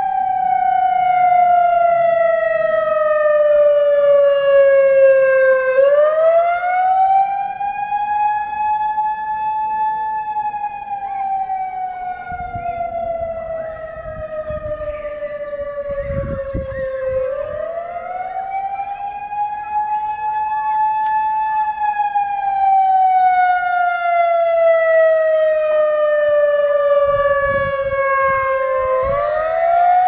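Whelen WPS 3016 electronic outdoor warning siren sounding a slow wail: the pitch rises over a few seconds, then falls more gradually, about once every 11 to 12 seconds. The rotating horn array makes the loudness swell and fade. It is meant to be dual tone, but the second tone seems to have faded out over the years.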